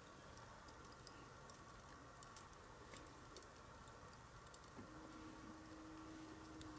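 Near silence: faint background hiss with scattered small clicks, and a faint steady hum that starts about five seconds in.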